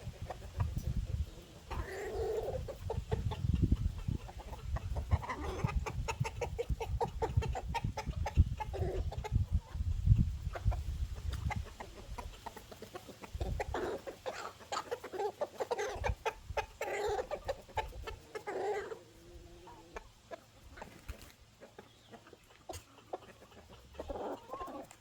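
A flock of chickens clucking as they feed on the ground, with many short clicks among the calls and a low rumble through the first half.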